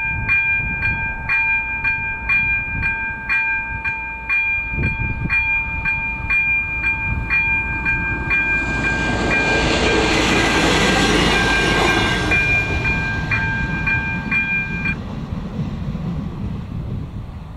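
The crossing's ZV02 electronic warning bell rings in regular strikes, about two a second, over a steady ring. About nine seconds in, a ČD class 814 RegioNova diesel railcar passes over the crossing, loudest around ten to twelve seconds in. The bell stops about fifteen seconds in.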